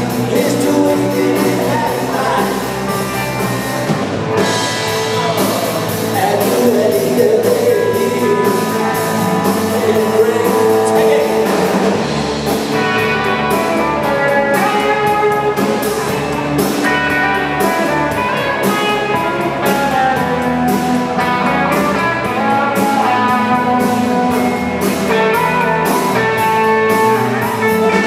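Live rock band playing: electric guitars and a drum kit with a singing voice. The drum beat comes through more clearly from about twelve seconds in.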